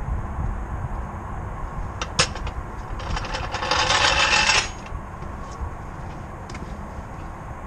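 Tyre and road rumble from a BMW E46 325xi driving, heard close to the wheel, with a single sharp knock about two seconds in and then a dense clatter of small hits lasting about a second and a half.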